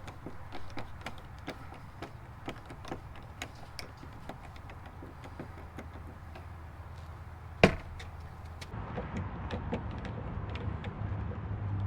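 Scattered light clicks and taps of hand work on an RV entry door lock with a Phillips screwdriver, with one sharp, loud knock about two-thirds of the way through.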